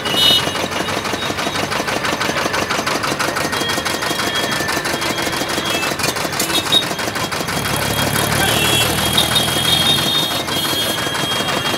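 Road traffic with engines running and a fast, even knocking pulse throughout. From about seven and a half seconds in, a tractor pulling a trolley passes close, and its deeper engine sound is the loudest part for about three seconds.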